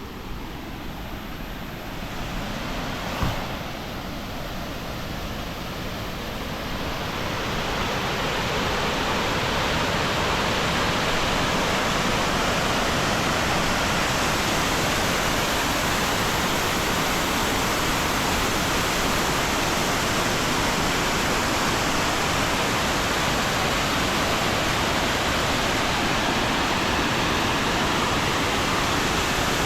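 Diyaluma Falls' water pouring down, a steady rushing noise that grows louder over the first eight seconds and then holds even. A single knock sounds about three seconds in.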